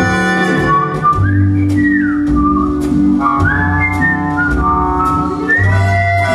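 Jazz-band music from an instrumental stretch of a 1920s-style novelty song: a high melody that slides up and down in pitch, played over held chords, bass notes and a steady beat.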